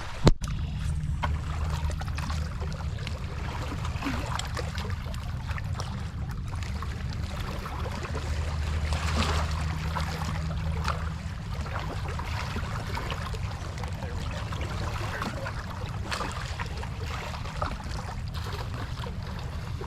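Lake water lapping and trickling among the rocks of a riprap shoreline, over a steady low hum that is stronger in the first half.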